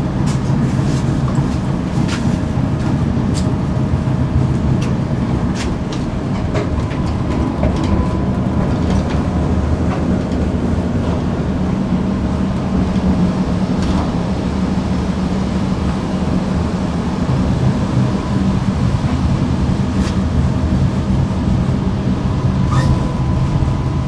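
Tram running along its track: a steady low rumble with scattered sharp clicks and a faint steady whine.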